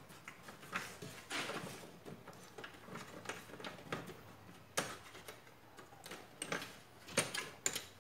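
Hands handling IDE ribbon cables and plastic connectors inside a metal computer case: irregular clicks, taps and rustling, with a few sharper clicks about five seconds in and again near the end.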